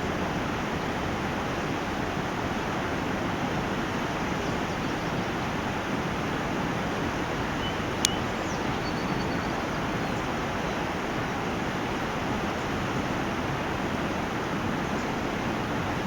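Steady outdoor background noise, an even rush with no rhythm or change, broken by a single sharp click about eight seconds in.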